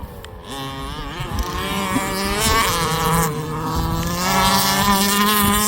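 Small two-stroke petrol engine of a large-scale RC car, running at high revs; it starts quieter and grows louder from about a second in, then holds a steady high pitch.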